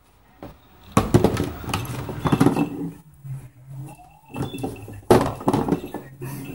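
A kitten scrambling over a plastic putting mat, with golf balls and plastic knocking and rattling in two loud bursts, about a second in and again about five seconds in.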